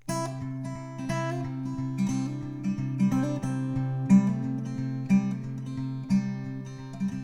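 Acoustic guitar playing a song's intro, notes picked one after another over a ringing low note.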